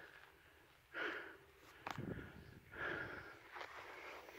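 A man's breathing: three short, hissy breaths about a second and a half apart, with a couple of faint clicks between them.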